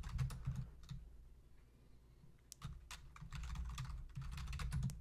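Typing on a computer keyboard: a few keystrokes, a pause of about a second and a half, then a quicker run of key clicks.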